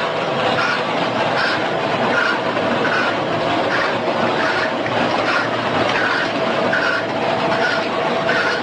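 Steady mechanical clattering with a regular beat, an accent about every three-quarters of a second.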